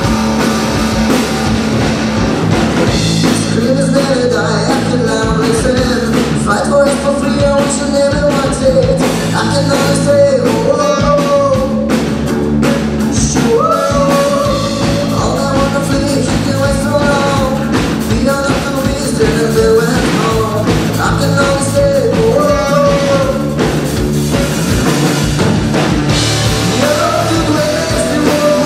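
Live alternative rock band playing: electric guitars, bass guitar and drum kit, with lead vocals coming in about three seconds in.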